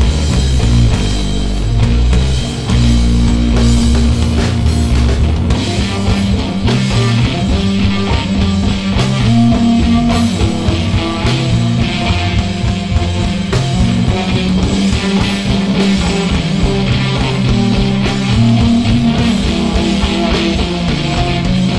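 Instrumental rock passage: electric guitar playing over a full drum kit, with no singing.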